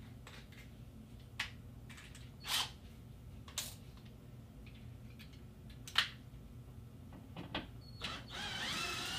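A few light clicks and knocks of tools and parts handled at a car door, then about 8 s in a cordless drill-driver whirs for a couple of seconds, its pitch wavering, working on a T20 Torx screw in the door.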